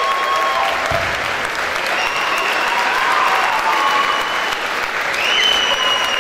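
Audience applauding steadily at the end of a dance, with long, high cheering calls held over the clapping, one rising higher about five seconds in.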